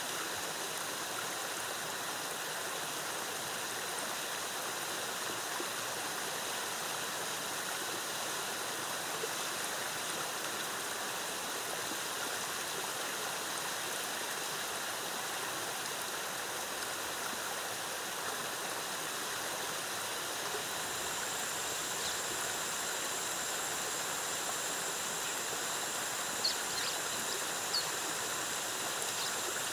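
Waterfall cascading, a steady rush of water. A steady high-pitched tone grows stronger about two-thirds of the way through, and a few short chirps sound near the end.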